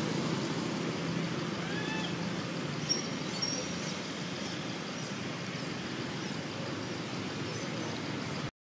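Steady outdoor background noise with a few faint, short chirping animal calls about two and three seconds in. The sound cuts out abruptly near the end.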